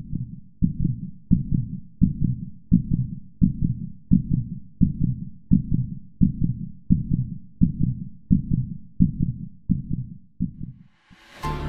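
Slow, even heartbeat-like low thuds, about one every 0.7 seconds, fading out shortly before electronic music begins near the end.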